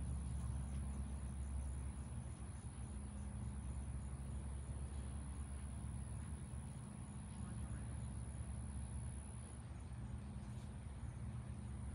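Outdoor ambience: a steady low rumble of wind on the microphone, with insects chirping faintly.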